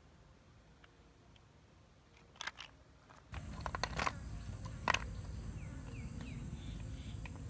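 Apple snail shells clicking and knocking against each other as hands pick through a pile of snails, in a few sharp clicks. Over the second half a louder outdoor background with low rumble runs under the clicks.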